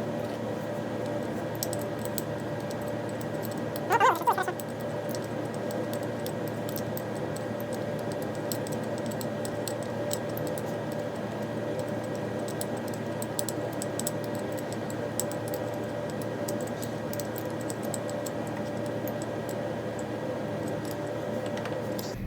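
Light clicking and tapping of small metal parts as a motorcycle's rear brake caliper and pads are handled and fitted, over a steady hum. A short squeak sounds about four seconds in.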